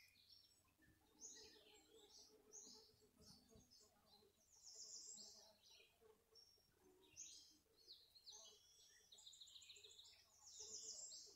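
Faint birdsong ambience: many short, high chirps and quick trills from several birds, busiest near the end.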